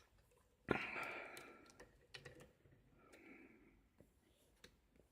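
A sharp metallic click about two-thirds of a second in, then faint handling clicks and rustles from a freshly picked-open Lockwood padlock.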